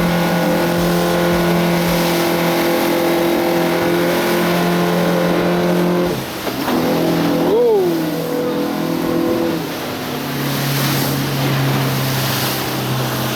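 A boat engine running under way, steady and loud over a wash of wind noise. Its pitch drops about six seconds in and settles lower about ten seconds in as it throttles back. A brief tone rises and falls near the middle.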